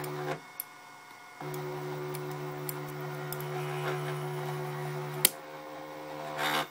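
Small motor of a homemade tensile test rig running with a steady hum, pausing for about a second near the start and then resuming, as it pulls a 3D-printed plastic compact tension specimen. A single sharp crack about five seconds in, as the specimen starts to fracture, followed by a short burst of noise just before the end.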